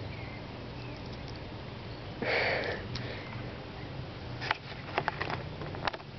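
A cat sniffing once, loudly, close to the microphone about two seconds in, then a few sharp clicks and crackles as it paws and noses at the bark mulch and the camera lanyard.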